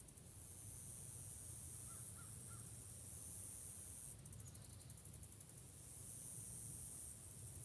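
Faint forest ambience: a crow cawing three quick times in the distance about two seconds in, over a steady high hiss that pulses in places and a low rumble.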